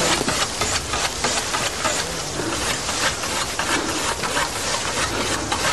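Scythes mowing grass by hand: repeated swishing strokes of the blades cutting through the meadow.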